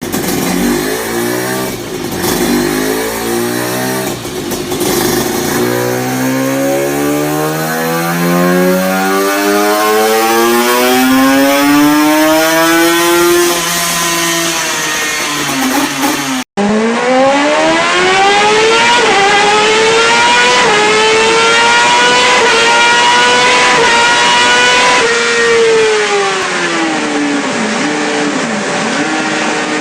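Two superbike exhausts, one after the other, with an abrupt cut about halfway. The first blips the throttle a few times, then revs up in a long rising sweep and falls back. The second climbs quickly and holds high revs with small jumps in pitch before winding down near the end.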